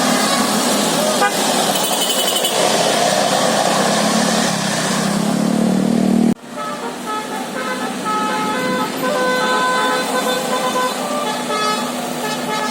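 Buses' musical 'telolet basuri' air horns sounding over loud bus noise. In the first half a pitch climbs steadily; after an abrupt break about six seconds in, the horn plays a tune of held notes that change pitch one after another.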